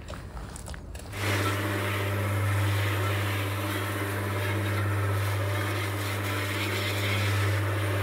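Small electric cement mixer running, its motor giving a steady low hum as the drum turns the concrete mix. It cuts in abruptly about a second in, after a few faint clicks.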